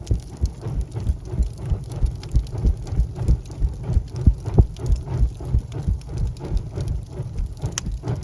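Wood fire burning in a fireplace: dense, irregular crackling and popping with soft low thuds underneath.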